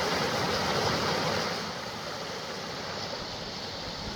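Steady rushing of a mountain creek, easing a little after about a second and a half.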